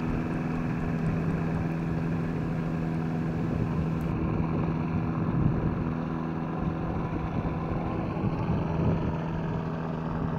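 Amphibious ultralight's engine and propeller running at a steady drone as the aircraft taxis on the water.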